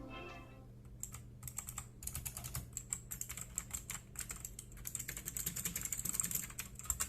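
Fast typing on an HP GK100 mechanical keyboard with clicky blue switches: a dense run of sharp key clicks starting about a second in.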